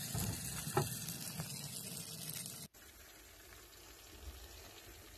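Sausage gravy sizzling and bubbling in a hot cast iron skillet, a steady hiss that cuts off abruptly about two and a half seconds in, leaving only faint room tone.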